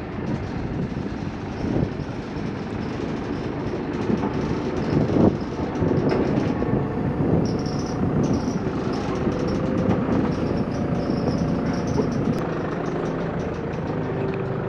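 Diesel engine of a Manitou MLT 627 Turbo telehandler running steadily. A couple of short knocks come about two and five seconds in.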